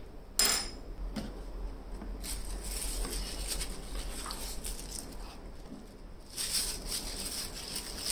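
A small metal spoon set down on a table with a sharp click, then unpacking handling: tissue paper rustling and crinkling, louder and crisper about six and a half seconds in, as an accessory is unwrapped.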